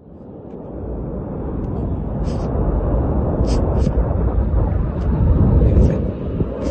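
Mount Etna erupting: a deep, continuous rumble that swells up over the first couple of seconds, with a few brief hissing crackles above it.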